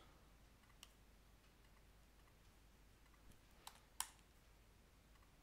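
Near silence: room tone with a few faint computer clicks, one about a second in and two close together near four seconds, as text is copied and pasted.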